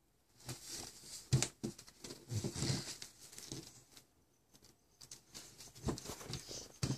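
Soft, irregular taps and rustles of a toddler shifting on a play mat and getting to his feet, with a brief quiet spell a little past the middle.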